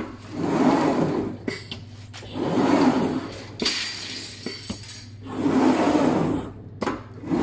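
CNC glass cutting machine's gantry head travelling over a glass sheet: a motor sound that swells for about a second, three times, with sharp clicks between the runs.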